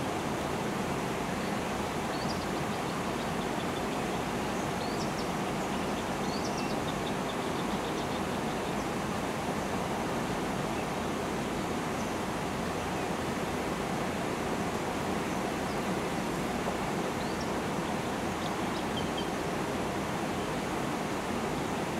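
Steady outdoor rushing noise, with faint high chirps from small birds a few times.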